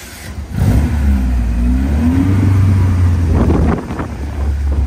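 Peugeot 205 track car's 1.9-litre 16-valve Mi16 engine running loud, with the revs rising and falling under the throttle. It drops back briefly near four seconds, then picks up again.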